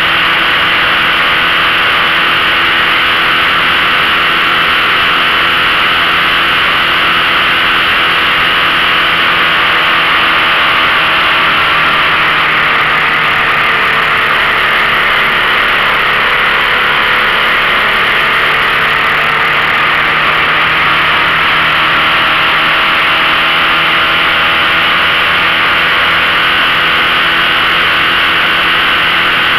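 15 hp outboard motor running steadily under way, its pitch drifting slightly up and down, over a steady hiss.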